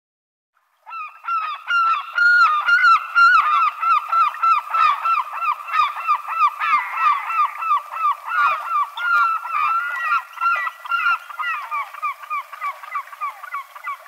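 A flock of gulls calling, many short downward-slurred calls overlapping in a fast, unbroken chatter that starts about a second in.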